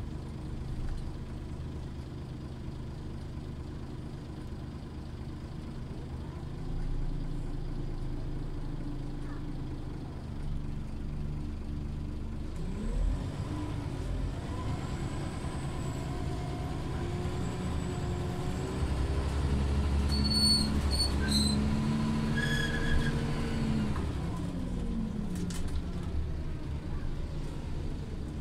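Scania OmniLink CL94UA articulated city bus heard from inside: the engine idles, then about halfway through its revs climb and shift as the bus pulls away and speeds up, and near the end they fall away as it slows.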